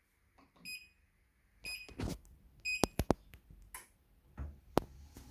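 Xiaomi WalkingPad C1 treadmill beeping three times, about a second apart, as it is switched on and started, with a few sharp clicks and knocks in between.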